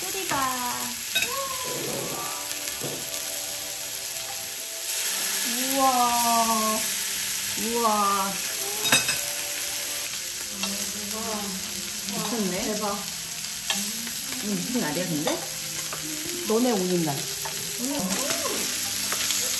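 Thick beef striploin steaks sizzling as they sear on a hot steel griddle plate, the hiss growing louder about five seconds in. A tune of gliding pitched notes plays over it.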